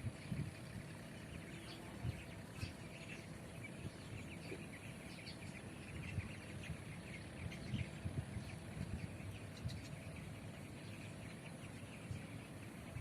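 Outdoor ambience: small birds chirping in short scattered calls over a low, uneven rumble.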